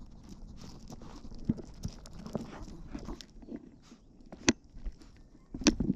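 Irregular soft thumps and scuffs of a small Yorkshire terrier moving about on gravelly grass. Two sharp clicks stand out, one past the middle and one near the end.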